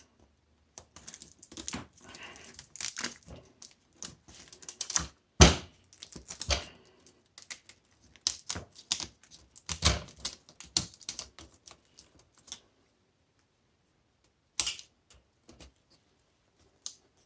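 Irregular metallic clicks, taps and knocks of hand tools prying and snapping parts off a washing machine motor being stripped for scrap. The clicking stops about three quarters of the way through, leaving a few single knocks.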